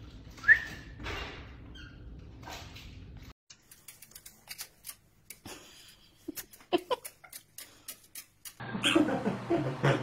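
Caique parrot sounds across quick clip changes: a sharp, short, high chirp about half a second in, then a run of light separate clicks, and busier pitched chatter near the end.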